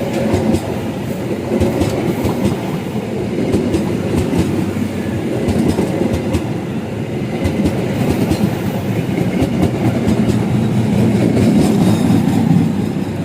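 Train passing close by, its wheels clattering steadily over the rail joints.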